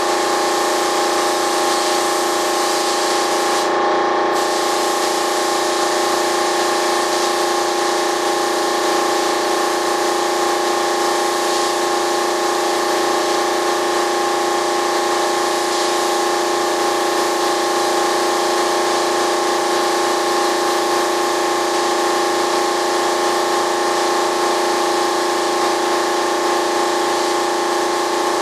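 Air spray gun hissing steadily as it sprays primer, over a steady mechanical hum. The hiss cuts out briefly about four seconds in, as the trigger is released, while the hum carries on.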